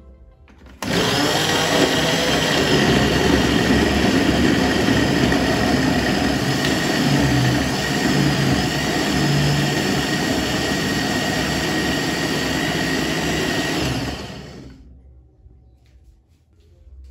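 Countertop blender switched on, its motor running steadily as it purées chunks of fruit and squash into a smoothie, then winding down and stopping about fourteen seconds in.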